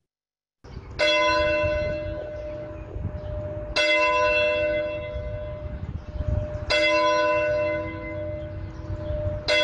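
A single church tower bell tolling, struck four times about three seconds apart, each stroke with the same ringing tones that hang on until the next, over a low rumble; the last stroke comes near the end.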